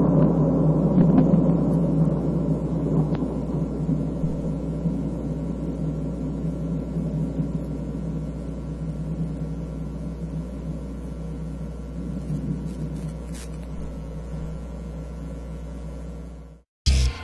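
Long roll of thunder after a nearby lightning strike, a low rumble slowly fading away over a steady electrical hum, until it cuts off suddenly near the end.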